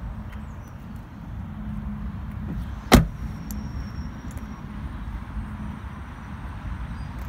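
A Mercedes-Benz A200d's door shut once with a single sharp thud about three seconds in, over a steady low rumble.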